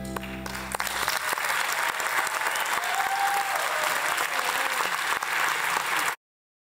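The youth combo's final chord rings out and dies away in the first second, then the audience applauds. The applause cuts off abruptly about six seconds in.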